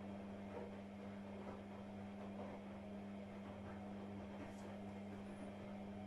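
AEG Lavamat front-loading washing machine running mid-programme, giving a steady low hum over a faint rushing noise.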